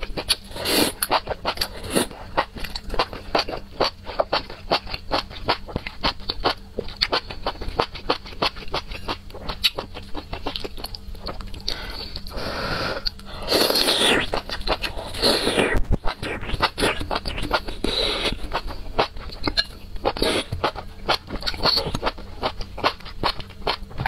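Close-miked eating: slurping enoki mushroom strands in spicy broth and wet chewing, a dense run of small mouth clicks and smacks, with a few longer slurps a little past the middle.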